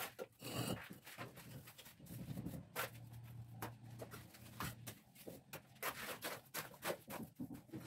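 Plastering trowel scraping and slapping wet cement mortar on a brick wall in short, irregular strokes, with a scoop of mortar taken from the pile near the end.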